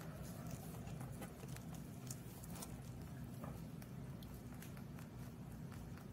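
A rabbit chewing a piece of fig: a quick, irregular run of small crunching clicks, over a low steady hum.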